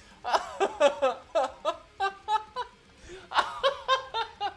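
A man laughing heartily in a long run of short ha-ha pulses, easing off briefly about halfway through and then picking up again.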